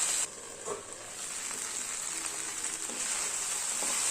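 Okra masala sizzling in oil in a frying pan, with a few light taps of a spatula. The sizzle drops suddenly just after the start, then gradually builds back up.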